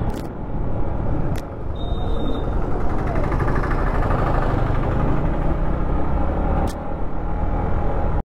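Yamaha MT-15's single-cylinder engine running steadily at low riding speed, heard from the rider's seat over road noise. A short high beep sounds about two seconds in.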